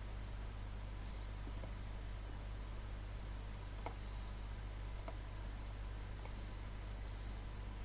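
Recording noise floor during a pause in narration: a steady low hum and hiss, with four faint sharp clicks, the two loudest near the middle.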